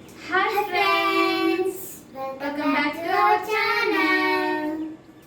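A high, child-like voice singing two short phrases of long held notes that glide up and down.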